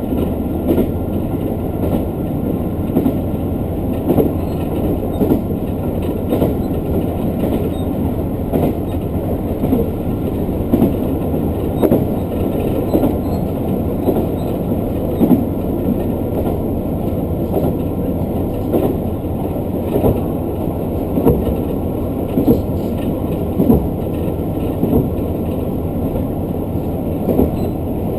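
Local diesel train running steadily along the line, heard from inside the car: a continuous rumble of wheels on rail with scattered short knocks as the wheels cross rail joints.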